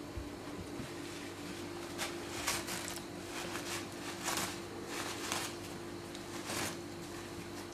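Siberian husky tearing at a toilet paper roll with its mouth and paws: a run of short paper rustles and rips over a steady low hum.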